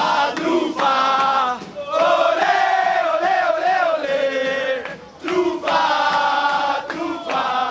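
A group of football players chanting a celebration song together, loud shouted singing in long phrases with brief breaks about two and five seconds in.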